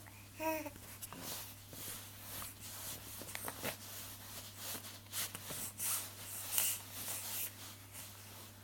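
A 10-week-old baby's short coo about half a second in, followed by scattered soft clicks, snuffles and rustling from the baby's mouth, breathing and movement.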